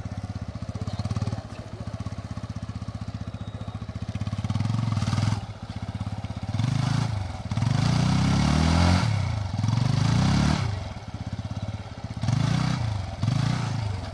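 TVS Apache RTR 180's single-cylinder engine revved in repeated bursts, about six rises and falls with the longest in the middle, as the rear tyre spins in loose ploughed soil with the bike bogged down.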